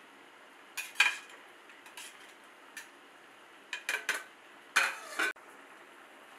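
Plastic spatula scraping and knocking against a metal pot while stirring a thick, wet curry masala, in a handful of short strokes. The loudest is about a second in, and the sound cuts off suddenly near the end.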